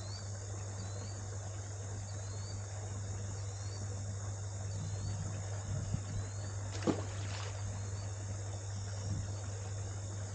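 Insects chirping: a short rising chirp repeats about every three quarters of a second over a steady high buzz, with a steady low hum underneath. A single sharp click about seven seconds in.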